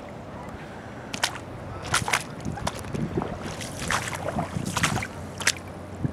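Footsteps wading through shallow floodwater in rain boots, with an irregular run of splashes and sloshes starting about a second in.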